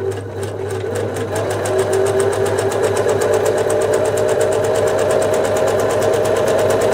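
1974 Singer Genie 354 sewing machine stitching through fabric: its motor hums and the needle mechanism keeps up a fast, even clatter, picking up speed over the first second or so. It sounds typical of a machine that hasn't been serviced for a long time.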